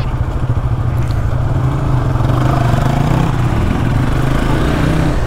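Motorcycle engines idling with an even low pulsing, then pulling away from a stop about two seconds in.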